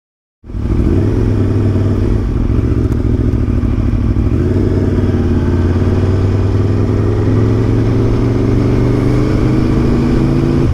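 Aprilia Tuono V4 1100 Factory's V4 engine running steadily while riding at an even pace. It cuts in abruptly about half a second in.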